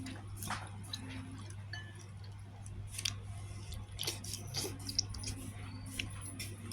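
A person eating noodles close to the microphone: chewing, with scattered small clicks over a steady low hum.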